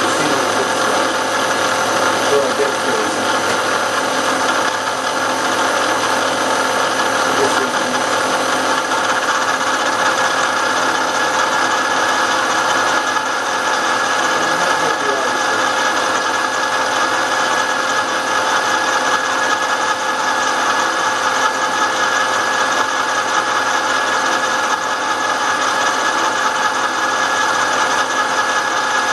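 A machine tool's motor running steadily while a steel block is machined to size.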